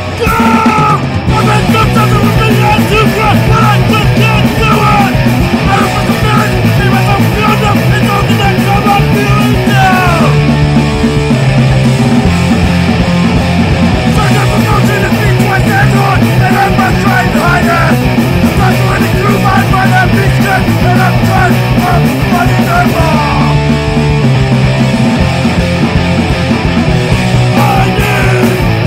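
Punk rock band recording playing: loud, dense guitar-band music over a steady drum beat.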